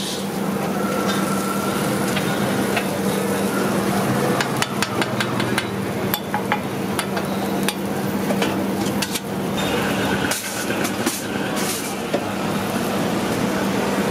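Dosa sizzling on a hot flat iron griddle as vegetable masala is spread over it, with scattered sharp clicks and a steady low hum underneath.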